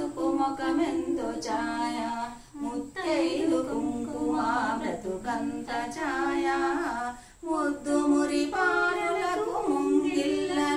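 Unaccompanied female singing of a devotional aarti song, in phrases of long held notes.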